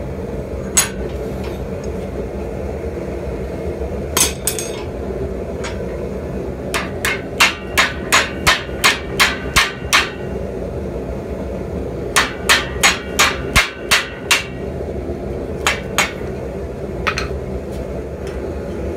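Blows struck on a red-hot steel spatula clamped in a vise, bending it behind the blade. A few single strikes come first, then two quick runs of about four blows a second, then a few scattered strikes near the end.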